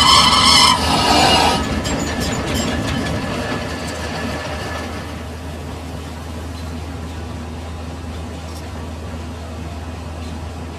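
A lathe cutting tool squealing against the bore of a spinning V-belt pulley until the cut ends about a second and a half in. The lathe then runs on and winds down, leaving a low steady hum.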